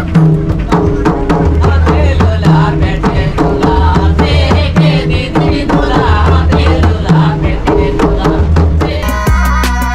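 Background music: a song with a steady drum beat and repeating bass notes; about nine seconds in it switches abruptly to a different passage of held notes.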